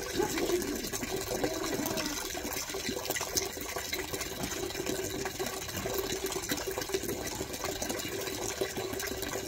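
Wet, squelching water-and-lather sounds as a rottweiler's soapy coat is scrubbed by hand, full of small crackles over a steady watery hiss with a faint hum underneath.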